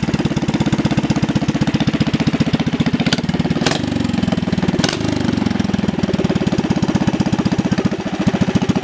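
Small ketinting (longtail boat) engine running steadily on test, a rapid even firing beat, with a few sharp clicks in the middle; the beat slows a little near the end.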